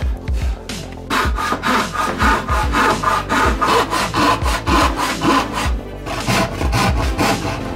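Thin-bladed handsaw cutting a notch into a pine board with quick back-and-forth strokes, followed by a hand brushing sawdust off the wood. Background music with a steady beat runs underneath.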